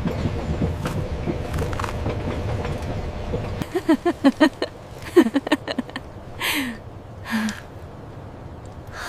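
Train rolling along the rails: a steady low rumble with light clicks that cuts off suddenly about three and a half seconds in. A run of short pitched sounds and two soft puffs follow.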